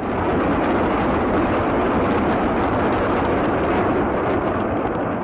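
A battery of truck-mounted multiple rocket launchers firing a salvo: a loud, continuous rushing roar of many rockets leaving in quick succession, thick with crackle.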